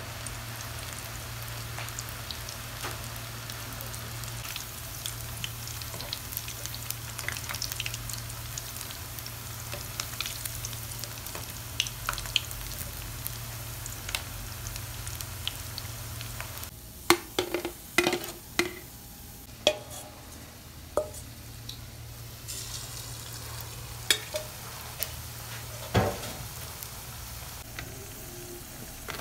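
Potato pakoras deep-frying in hot oil in a metal karahi: a steady sizzle with fine crackles. About two-thirds of the way through the sizzle drops, and a slotted metal spatula knocks and scrapes against the pan several times as the fried pieces are lifted out.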